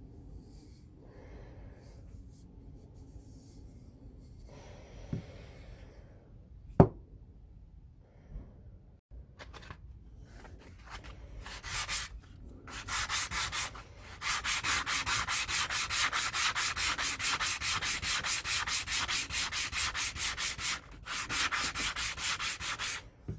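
Wood being hand-sanded with quick, even back-and-forth strokes, several a second. It starts about halfway through and breaks off briefly near the end, after a quieter stretch with a single sharp click.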